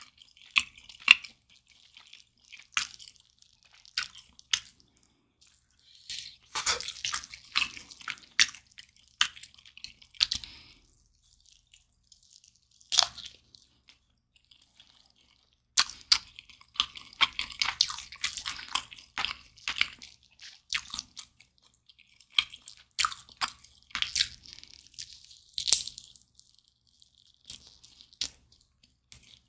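Close-miked eating of a sauce-glazed roast chicken leg: biting meat off the bone and chewing, with wet, sticky mouth sounds and sharp clicks. The sounds come in bunches of several seconds with short, quieter pauses between bites.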